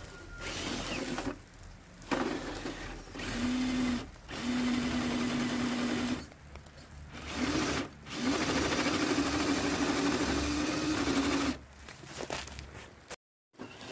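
Associated Element Trailrunner RC crawler's electric motor and drivetrain whirring in short bursts of throttle. There are about six stops and starts, and the longest run lasts about three seconds.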